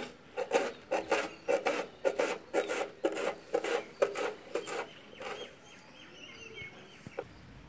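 Kitchen knife chopping green chillies on a round chopping board: quick, steady strokes, about three a second, that stop about five seconds in.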